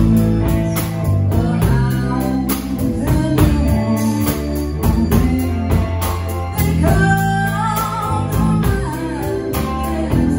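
Rock band playing: a drum kit keeping a steady beat, with electric guitars and bass under a lead vocal.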